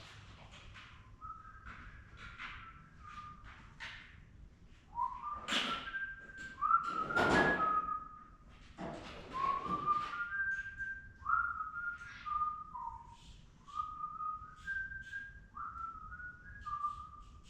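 A man whistling a meandering tune in short clear notes that hop between pitches. Some louder noisy handling sounds come in between about five and ten seconds in, with scattered light clicks throughout.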